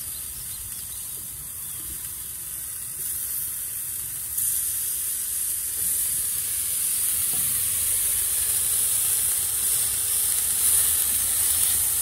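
Lemon slices sizzling as they are laid on a hot, oiled cast iron grill grate over charcoal: a steady hiss that grows louder about four seconds in and again a couple of seconds later as more slices go down.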